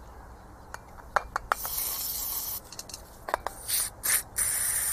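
Aerosol brake cleaner spraying from its can in short bursts, then steadily near the end, with a few light clicks at the start; it is washing oil and dirt out of a used Delphi diesel injector.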